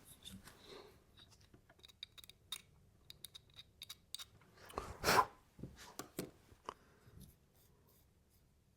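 Small clicks and scratches of tape being picked and peeled out of the inside of a disassembled folding utility knife, with a louder short rasp about five seconds in. The gunked-up tape is what has been stopping the blade from seating.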